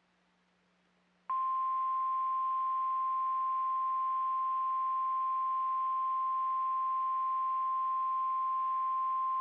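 NOAA Weather Radio's 1050 Hz warning alarm tone: one steady, unwavering beep that starts about a second in and holds. It signals that a warning message is about to be broadcast.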